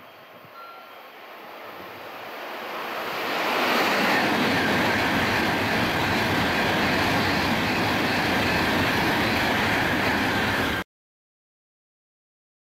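Tōkaidō Shinkansen high-speed train approaching and passing through a station at speed: a rush of noise that builds over the first few seconds, then stays loud and steady as the cars go by, and cuts off suddenly to silence near the end.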